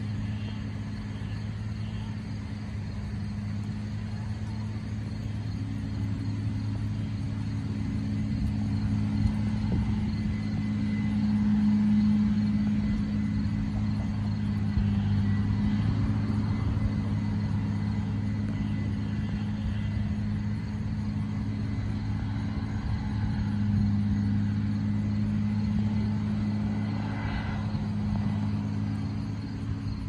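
Combine harvester running while harvesting corn: a steady low engine drone that swells twice, around the middle and again later, with a faint thin high whine above it.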